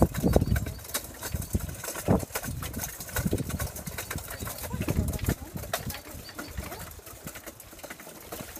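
A small wooden cart carrying a metal milk can rattling and clicking as a dog pulls it over a bumpy dirt track, with irregular low thumps.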